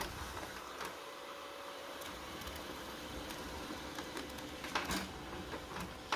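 HP LaserJet Pro P1102w laser printer running as it prints a test page: a steady mechanical whir with a few sharp clicks as the paper feeds through.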